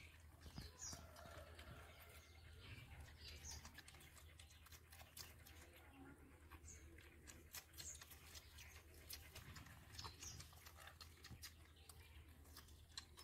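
Near silence: faint outdoor background with scattered soft clicks and a few short, high chirps.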